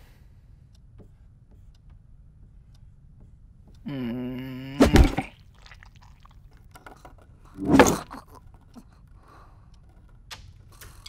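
Quiet room tone broken about four seconds in by a low, steady pitched drone held for about a second, cut off by a sharp loud thump. A second, heavier thump follows about three seconds later.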